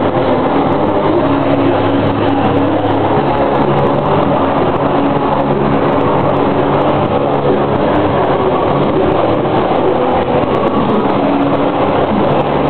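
A live band playing loud, distorted music, heard as a dense, overloaded wall of sound through a camcorder's microphone, with held notes that change every second or two.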